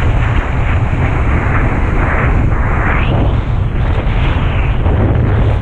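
Heavy wind buffeting a camera microphone while kitesurfing: a constant deep rumble with a rushing hiss that swells and fades every second or so.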